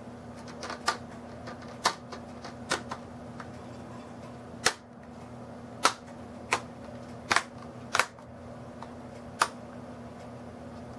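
Plastic screen bezel of a Lenovo IdeaPad Z570 laptop being pressed onto the lid, its clips snapping into place with about nine sharp clicks at uneven intervals. A steady low hum runs underneath.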